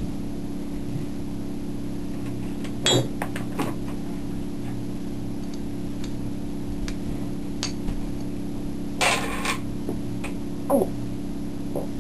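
Steady low mechanical hum, with a few scattered knocks and clicks and a short noisy rustle about nine seconds in.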